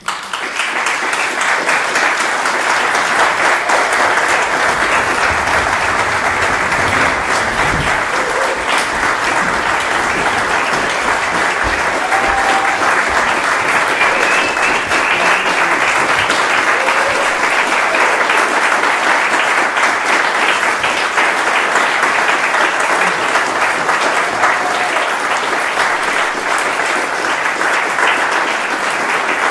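Theatre audience applauding at the end of a play, breaking out suddenly and continuing steadily through the cast's curtain call.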